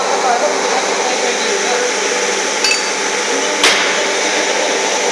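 Steady whirring noise of running machinery in a shoe-sole moulding workshop, with a fainter click a little past halfway and one sharp knock about three and a half seconds in.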